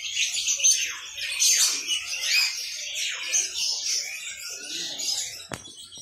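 Many caged songbirds chirping and singing at once: rapid, overlapping high notes, many sweeping quickly downward. A single sharp click about five and a half seconds in.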